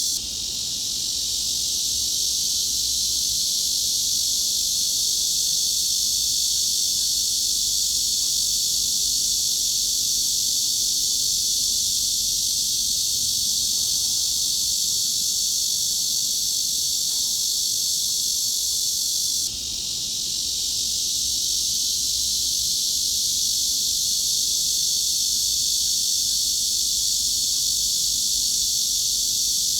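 A steady cicada drone: a dense, high, even buzz that fills the upper range. It drops out for a moment just after the start and again about two-thirds of the way through, each time swelling back up over a second or so.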